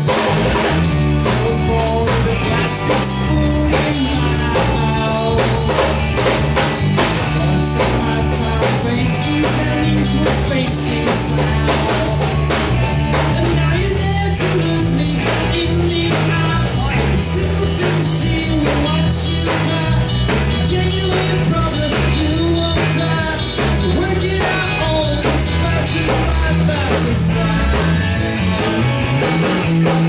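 Live band playing: drum kit, electric bass, and acoustic and electric guitars, with a man singing. The bass line is the loudest part, stepping from note to note under a steady drum beat.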